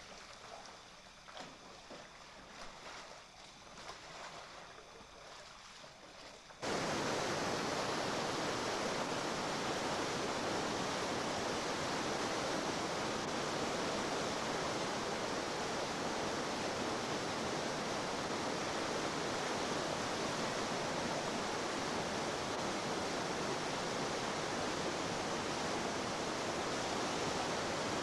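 Faint kayak paddle splashes in a small pool, then, about seven seconds in, an abrupt cut to the loud, steady rush of whitewater rapids.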